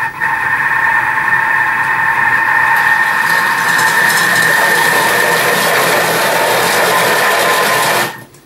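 Thermomix motor and blades running steadily at speed 5 with a high whine, chopping thick cooked bacon jam to break up the bacon pieces while leaving it chunky. It stops suddenly about 8 seconds in.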